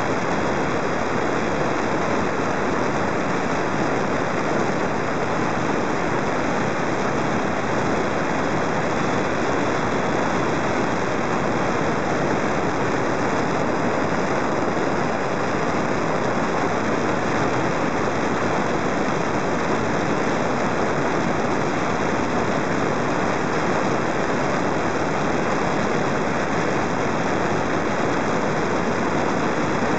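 Steady, even rushing noise of airflow and motor on a model airplane in flight, picked up by the camera mounted on its nose.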